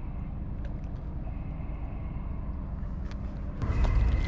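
Steady low rumble with a faint, intermittent high whine over it and a few small clicks; the rumble grows clearly louder about three and a half seconds in.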